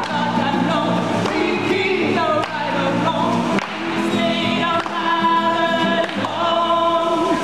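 Live song: several voices singing together to an acoustic guitar, with long held notes in the second half.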